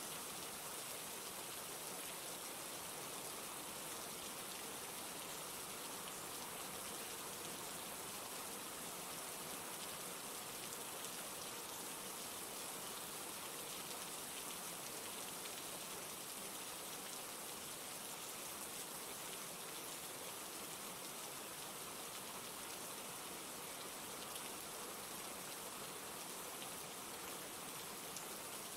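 Steady rain falling, an even hiss dotted with fine drop ticks that holds unchanged throughout.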